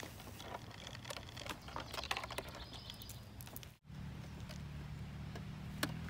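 Faint light clicks and taps from a child's hands handling things on the pavement beside a toy truck. After a brief break about two-thirds in, a low steady hum comes in, with one sharper click near the end.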